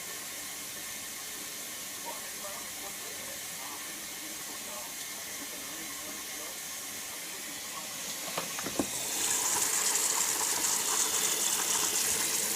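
Indesit 860B washing machine taking in water: after a faint steady hiss, a couple of clicks about eight seconds in and then a steady rush of water flowing into the machine.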